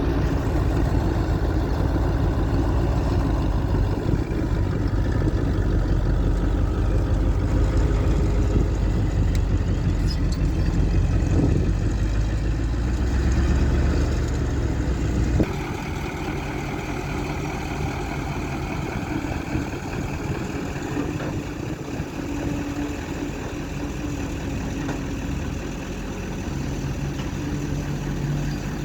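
Excavator engine running steadily as it works. About halfway through the sound changes abruptly to a somewhat quieter engine sound.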